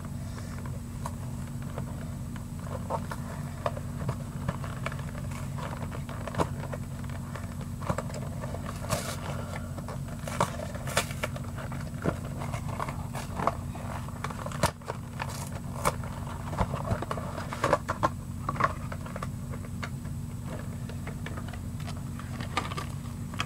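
Scattered clicks, taps and crinkles from a Pokémon card box being handled and opened, over a steady low hum.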